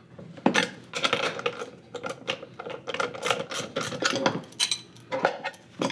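Hand socket ratchet clicking in repeated quick runs of ticks as it is swung back and forth, tightening the mounting bolts of a cast-iron pillow block bearing housing.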